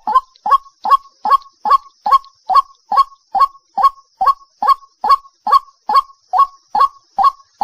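White-breasted waterhen calling a steady, evenly spaced run of loud single 'kuk' notes, a little over two a second: the bird's repeated 'cuốc cuốc' call.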